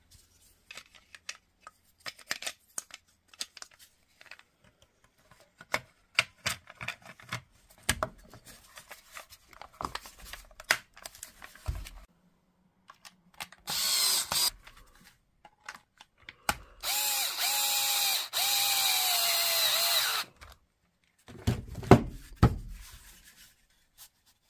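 Cordless drill-driver motor running in two spells, a short one about halfway through and a steady one of about three seconds soon after, driving screws to close up the plastic battery case. Before that come scattered clicks and knocks of plastic parts being handled and fitted, and a few thumps follow near the end.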